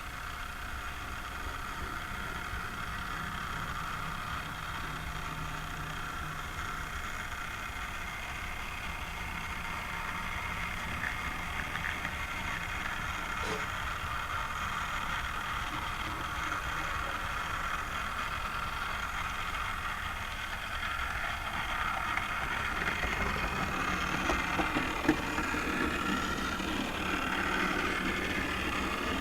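Model train running on the layout: the small electric motor whirring and the wheels rolling on the track, a steady sound with several held tones that grows a little louder and rougher over the last several seconds.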